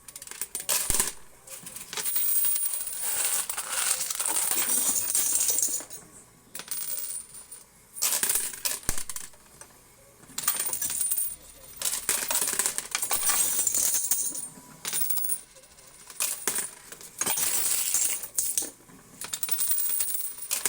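Quarters clattering and jingling in a coin pusher machine, in several runs of a few seconds each with short pauses between them.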